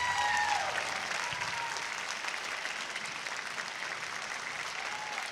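Theatre audience applauding steadily at the end of a song.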